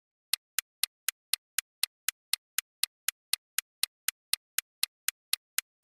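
Countdown timer ticking sound effect: sharp, even clock-like ticks about four a second, starting a moment in.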